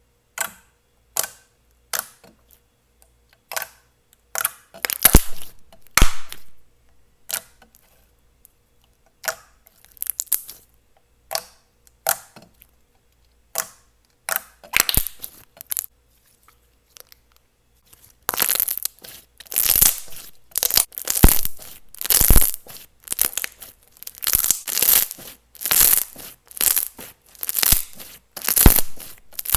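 Clear, non-tacky slime being handled, making short sticky pops and crackles. They are scattered at first, then come in a quick, steady run of louder presses and pulls from about two-thirds of the way through.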